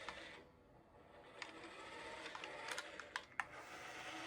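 Small electric motor of a remote-control toy car whirring as it drives on carpet, faint at first and growing louder, with a few light clicks.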